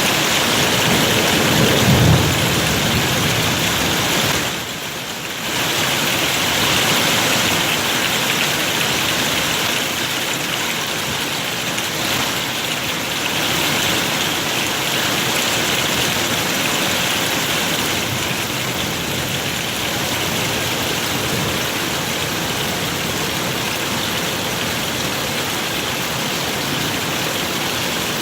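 Heavy rain pouring steadily in a storm, with a brief low thump about two seconds in.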